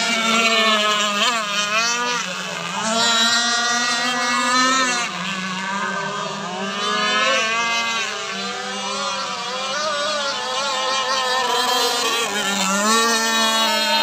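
Several remote-control racing powerboats' small engines running at high revs together, their pitches rising and falling as the boats pass and turn on the course.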